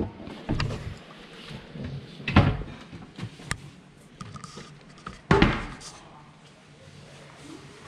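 Luggage locker doors being opened and shut: a few separate knocks and bangs, the loudest a little after five seconds in.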